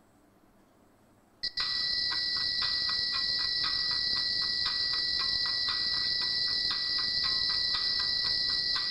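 Computer playback of a noisy test recording that starts suddenly about a second and a half in: a steady high-pitched hiss and a steady whistle-like tone, with a rapid chirping pulse about three times a second. The high hiss is the noise that a low-pass Butterworth filter is meant to remove.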